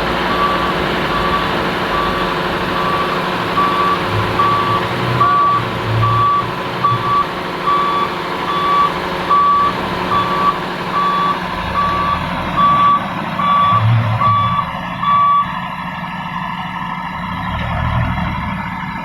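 Komatsu excavator's travel alarm beeping at an even pace over the running engine, stopping about fifteen seconds in.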